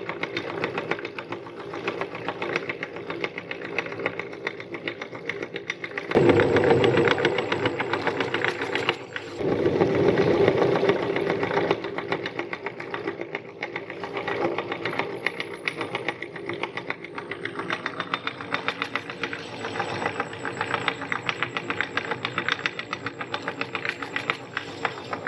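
Meat grinder running with a fast, even rattle, grinding round cookies. It grows louder twice, from about six seconds in and again at about nine and a half seconds, for a few seconds each time.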